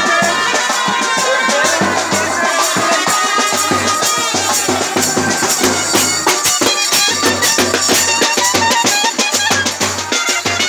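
A street band of wind instruments and percussion playing a loud festive tune, with reedy sustained melody lines over a steady fast beat.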